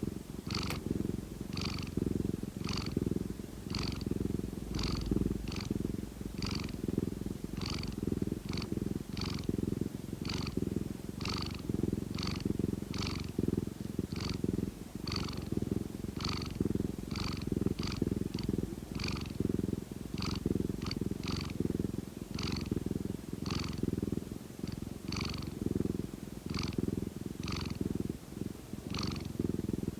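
Domestic cat purring up close: a continuous low rumble, with a short higher rasp recurring about every two-thirds of a second.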